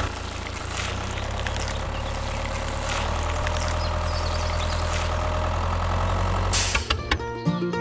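A heavy, truck-like engine idling steadily, with a short hiss near the end. Then the engine sound cuts off and music starts.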